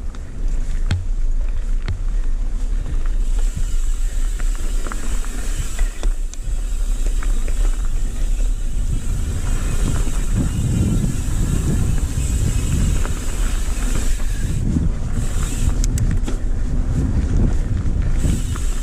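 Mountain bike riding down a dirt singletrack, heard from a handlebar-mounted camera: wind buffets the microphone over the rumble of tyres on dirt, with scattered knocks and rattles from bumps in the trail. The rumble grows heavier about halfway through.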